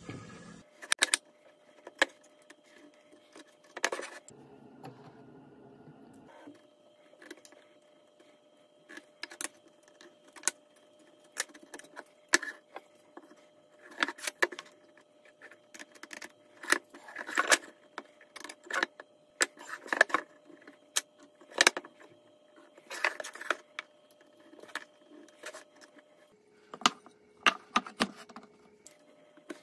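Irregular sharp clicks and knocks of wood on wood: painted wooden battens being handled, slotted into a notched joint and set down on a wooden desktop.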